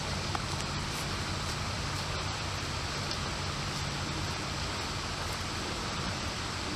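Creek water flowing, a steady, even rushing.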